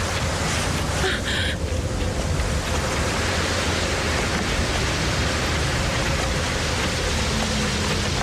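Steady rushing noise with a faint held tone underneath and no clear events.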